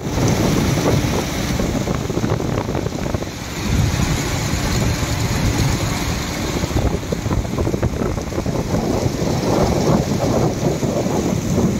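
Water churning and rushing in a boat's wake, a steady loud rush mixed with wind noise on the microphone.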